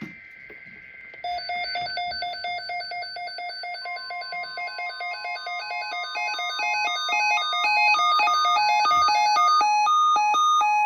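Weather radio sounding an alert for an incoming EAS tornado watch. It opens with a second of the two-pitch digital header tones. Then the receiver's electronic alarm plays rapid beeps that step up and down in pitch and grow louder, with a steady tone beneath from about four seconds in, and the alarm cuts off sharply near the end.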